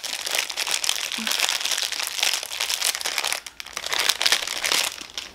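A small clear plastic bag crinkling as it is handled and opened to take an item out, with a brief pause about three and a half seconds in.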